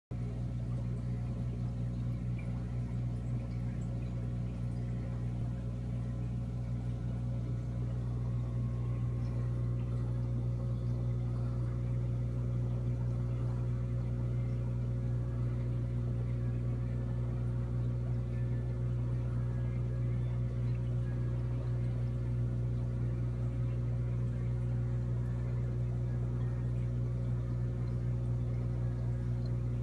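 Steady mains-frequency hum from running aquarium equipment: one strong low tone with a series of overtones above it, slightly louder from about eight seconds in.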